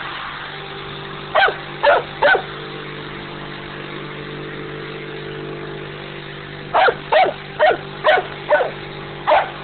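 A large golden-coated dog barking in short sharp barks: three quickly about a second and a half in, then six more near the end. A steady low hum runs underneath.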